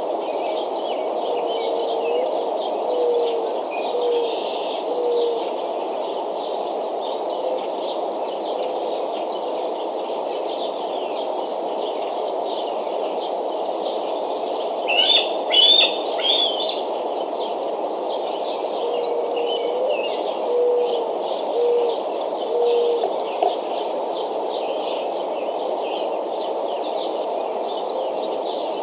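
Wild birds calling over a steady hiss: many small high chirps throughout, a low call of four short notes twice, and a louder burst of high calls about halfway through.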